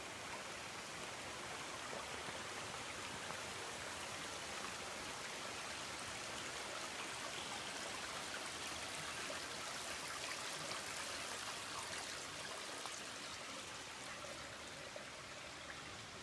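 Steady rushing noise of a stream's running water, a little stronger around the middle.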